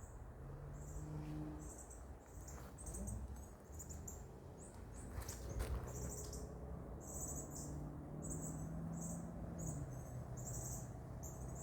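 Insects chirping in the woods: a steady run of short, high-pitched pulses, about two a second. Under them is a faint low hum and a few light rustling clicks.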